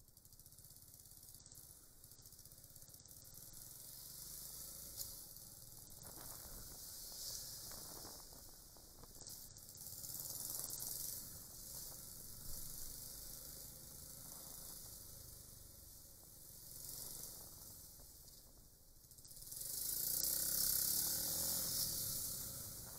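Steady wind and road hiss picked up by a motorcycle dash cam's microphone, with the faint low hum of the Suzuki Grasstracker Big Boy's single-cylinder engine underneath; the noise grows louder near the end.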